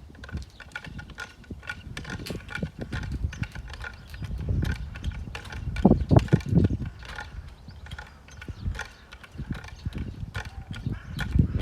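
Yale hand winch being worked, its ratchet pawl clicking in a quick uneven run, with heavier low knocks and thuds clustering about halfway through.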